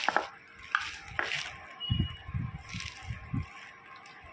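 Handling noise close to the microphone: a few sharp clicks and rustles in the first second, then a short run of soft low knocks.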